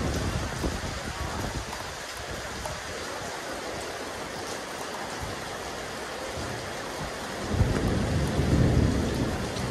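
Steady rain falling on a rooftop terrace. A low rumble swells in about three-quarters of the way through and carries on to the end.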